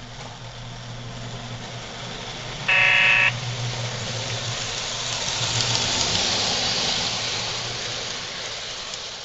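O scale model diesel switcher pulling freight cars along the layout: one short electronic horn blast about three seconds in, over a steady low hum. A hiss of wheels running on the track builds as the train comes close and rolls by, then fades near the end.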